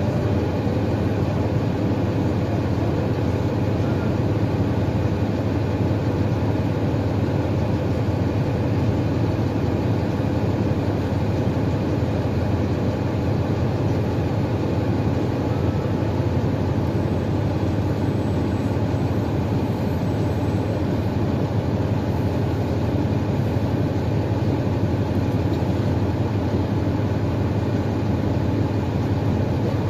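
2012 NABI 416.15 transit bus's diesel engine running steadily at a constant speed, with a steady low hum and no revving.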